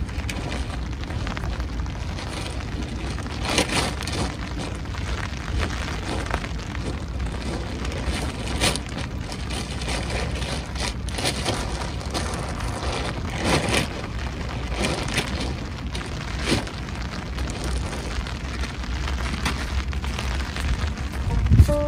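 Steady wind rumble on the microphone, with tent fabric and a groundsheet rustling now and then as they are folded and stuffed into a bag.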